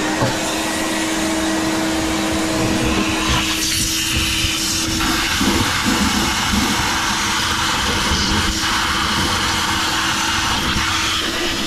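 Mains wet-and-dry vacuum running with its hose pressed onto a kitchen sink's waste pipe, sucking out a clogged drain; a steady motor whine with a low hum, its sound shifting about four seconds in.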